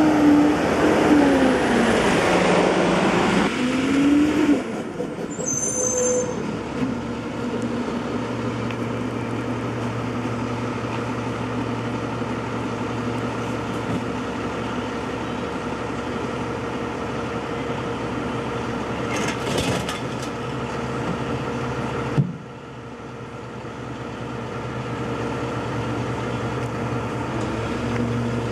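Diesel engine of a front-loading garbage truck revving with its pitch rising and falling, then settling to a steady idle. There is a brief hiss about two-thirds of the way through, and an abrupt drop in level shortly after.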